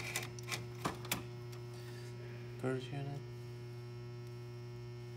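Steady electrical mains hum, with a few sharp plastic clicks in the first second or so as the printer's printhead and parts are handled, and a short voice sound a little before the middle.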